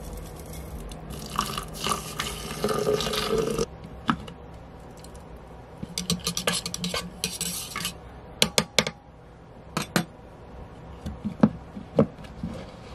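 Coffee being made in a French press: a pour into the pot lasting a couple of seconds, then a spoon stirring and clinking against the carafe, followed by a few sharp taps and clicks as the plunger lid is fitted on near the end.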